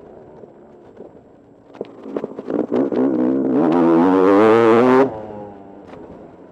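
2016 Sherco enduro motorcycle engine on the trail: quiet on a closed throttle with a run of knocks and clicks, then the throttle opens about two and a half seconds in. The engine pulls hard at high revs with a wavering pitch until the throttle shuts abruptly about five seconds in, and it drops back to a low run.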